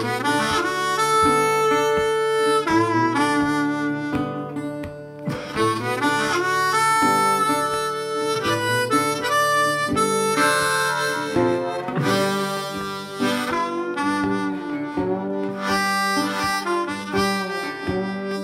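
Background instrumental music: a sustained melody line over chords.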